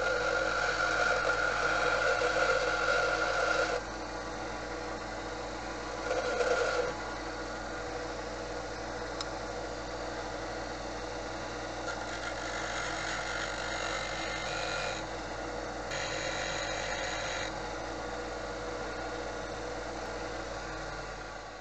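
Bench grinder running steadily while a small steel pin is pressed against its wheel to grind a flat on one edge, in four short grinding passes: a long one at the start, a brief one about six seconds in, and two higher-pitched hissing ones in the second half.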